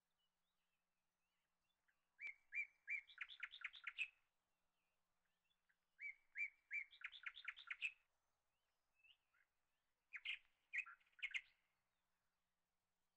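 A small bird singing three short phrases about four seconds apart, each a few separate chirps followed by a quick run of rising notes.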